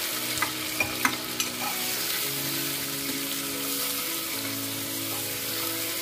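Chopped onions sizzling in hot mustard oil with whole spices on a high flame, stirred with a steel ladle. The ladle clicks against the metal pot about four times in the first second and a half.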